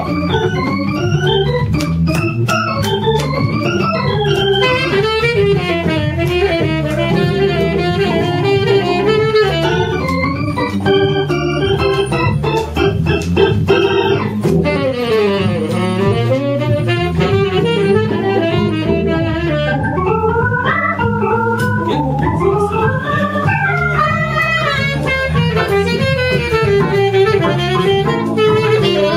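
Live jazz band playing, an organ carrying the lead line over a stepping bass.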